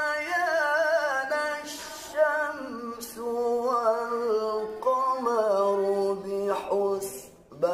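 A man's solo voice reciting the Quran in melodic tilawah style in maqam bayati, long held notes with wavering ornaments stepping downward in pitch. Quick sharp breaths come between phrases, and the voice trails off near the end.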